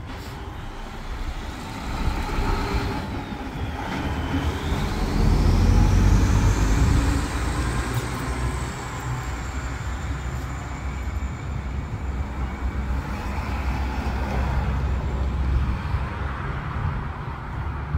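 UPS delivery truck driving past: engine rumble that swells loudest about five to seven seconds in, with a high whine that rises in pitch and then holds steady.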